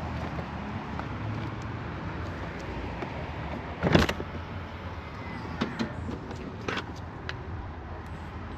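Steady low rumble of road traffic, with one sharp knock about four seconds in and a few lighter clicks after it.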